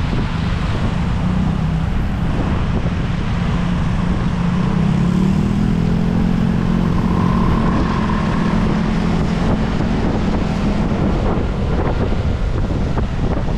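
Wind buffeting the microphone over the engine of a scooter riding on a wet road. The engine note rises a few seconds in and fades out near the end.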